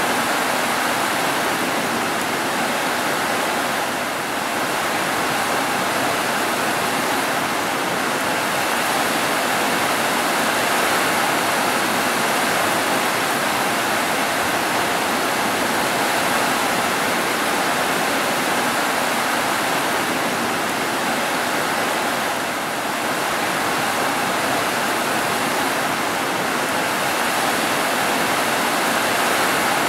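Heavy rain falling steadily on rooftops: a dense, even hiss that holds at one level throughout.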